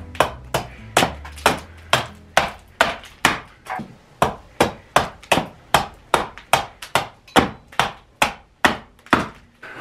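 Carving axe chopping into a wooden cup (kuksa) blank clamped in a vise: a steady run of sharp chops, about two or three a second, stopping just before the end.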